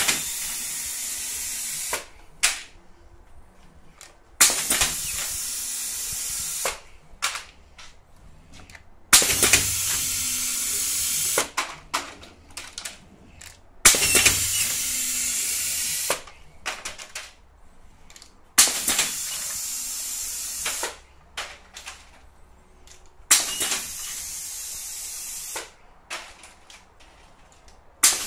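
Tray denester's pneumatic system cycling: bursts of compressed-air hiss about two seconds long, repeating every four to five seconds. Each burst opens with a sharp click, and short clicks and taps from the valves and mechanism fall between the bursts.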